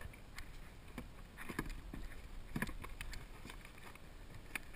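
Scattered light knocks and clatters of fishing gear against a plastic fishing kayak over a low steady wash of water and wind.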